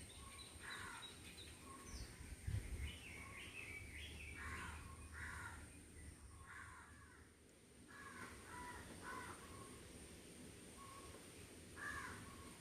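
Faint bird calls: a series of short calls in irregular groups, with one low thump about two and a half seconds in.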